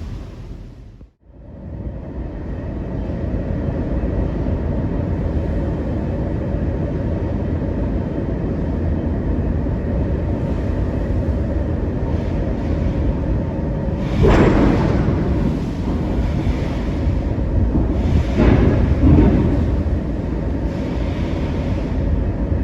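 Steady low rumble of a ferry under way in rough weather, engine and wind noise together, briefly dropping out about a second in. Louder rushing surges of wind and sea come about two-thirds of the way through and again a few seconds later.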